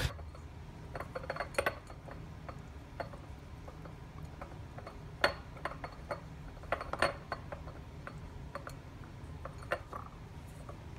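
Scattered light taps and small clinks of a pint glass and plate being handled on a countertop while a lemon wedge is rubbed around the glass rim, over a steady low hum.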